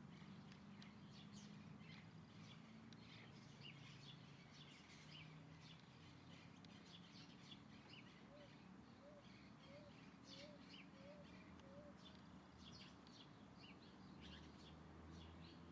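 Many small birds chirping and twittering, faint, with a steady low hum underneath. A lower, softer call repeats six times at an even pace around the middle.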